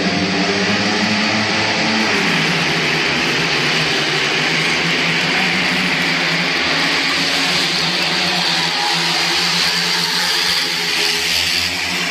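Speedway motorcycles' 500 cc single-cylinder methanol engines running hard in a race; the loud, rough engine noise takes over about two seconds in, as the bikes get away.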